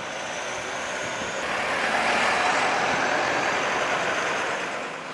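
A road vehicle passing close by: its engine and tyre noise swells to a peak about two and a half seconds in and then fades away.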